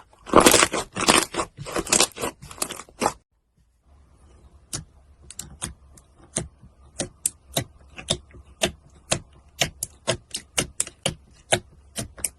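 Slime being squeezed and worked by hand: dense crackling for about three seconds, then after a brief break a run of sharp separate clicks, about two or three a second.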